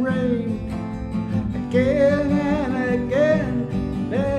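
Acoustic guitar accompaniment with long, slightly wavering sung notes over it.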